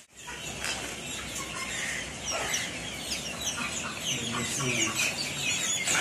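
A brood of chicks peeping, with many short, high, falling calls overlapping.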